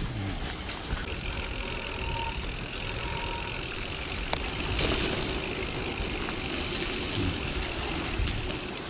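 Merida Silex gravel bike riding through heavy rain: a steady hiss of wet tyres and spray with wind buffeting the chest-mounted camera's microphone. It swells a little about five seconds in.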